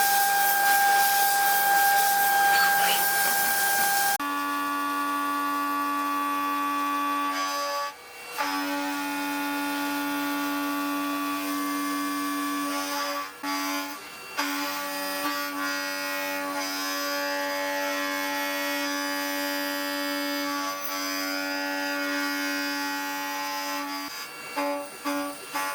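CNC milling machine spindle cutting metal, a steady whine of several fixed tones, with a hiss over the first few seconds. The whine drops out briefly about eight seconds in and again around fourteen seconds.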